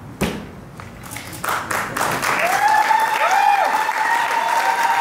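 Guests clapping as the wedding ring goes on, building up about a second and a half in, with a long high-pitched cheer held over the applause. A couple of small knocks come before it.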